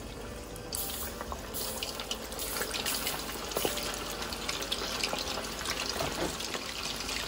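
Potato-starch-coated chicken wing pieces deep-frying in hot oil at about 170 °C: a dense sizzle full of small crackling pops. It grows louder in steps during the first couple of seconds as more pieces go into the oil.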